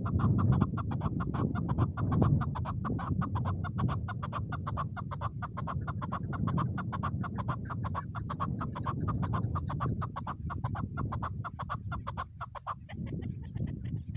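Chukar partridge calling: a fast, even run of short chuck notes, about five or six a second, that stops near the end, over a low steady rumble.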